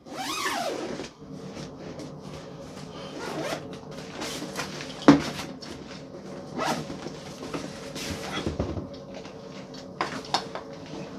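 Zipper on a padded soft crossbow case pulled open in several pulls, with the nylon fabric rustling as the case is handled. A sharp click about five seconds in.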